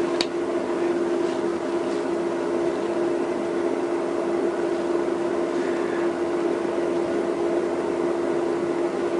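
Steady mechanical hum with one constant tone and an even hiss, like a fan or heater running, with a faint click just after the start.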